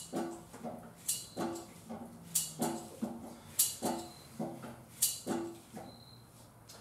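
Manual hydraulic pallet jack handle being pumped to raise a heavy load: a metallic clank with a short ring on each stroke, about one stroke every second and a quarter, with a lighter knock between strokes. The strokes stop about five and a half seconds in, as the jack's ram nears full extension.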